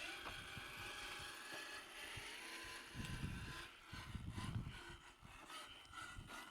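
Rlaarlo JK07PRO 1/7 RC trail truck driving, its electric motor and geared drivetrain giving a faint, thin whine, with low rumbles about three seconds in and again a second later.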